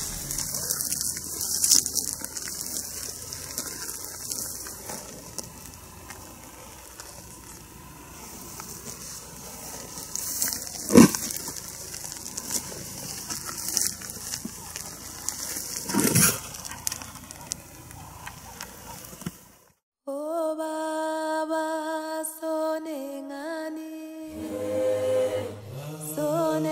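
Outdoor field recording with a steady high hiss, broken by two sharp loud cracks, the louder about eleven seconds in and another about five seconds later. After a brief dropout, sung chant-like music with several voices starts for the last several seconds.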